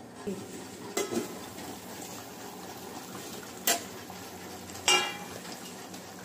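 Steel lid knocking and clinking against a steel pot as it is taken off and set aside: a few sharp metallic knocks, the last one ringing briefly. Under it, the steady sound of fish curry simmering on a gas stove.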